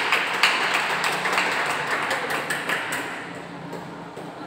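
Hand clapping, a quick even patter of claps about five a second, fading and dying away about three seconds in.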